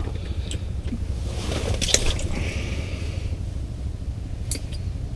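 Hands handling an ice fishing rod, reel and jig: a few small clicks, the loudest about two seconds in, and a brief squishy rustle around it, over a steady low rumble.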